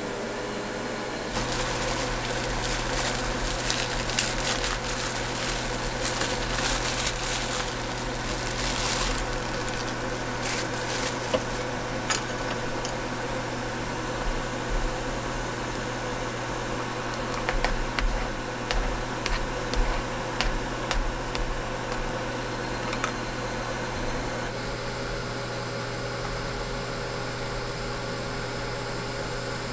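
Portable induction cooktop running with a steady hum while a steel pot of water heats and boils. Chopsticks clink and tap against the pot several times past the middle as noodles are stirred.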